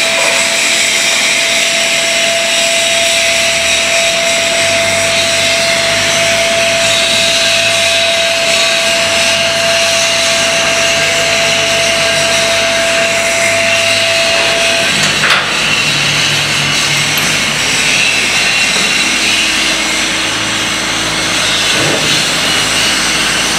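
Double-column automatic band saw (GZK4240) running and cutting through a bundle of square metal bars: a steady, loud hiss of the blade over a motor hum. A thin steady whine stops about two-thirds of the way through, followed by a click.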